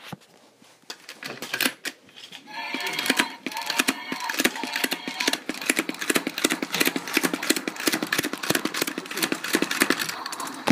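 Toy plunger spinning top with a clear dome, spinning and giving a fast, steady rattle of clicks that starts about two and a half seconds in. For the first few seconds of it a humming tone rings along with the rattle.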